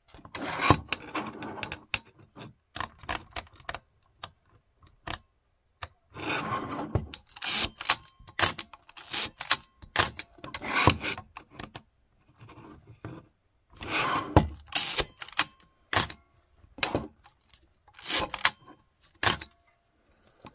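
Nikon FE2 35 mm SLR wound and fired over and over with its back open: short ratcheting rasps of the film advance lever alternate with sharp clicks of the shutter and mirror firing.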